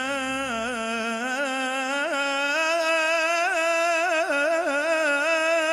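Male Islamic inshad ensemble singing: a lead voice draws out a long melismatic line with quick turns and wavers, over a steady low note held beneath it.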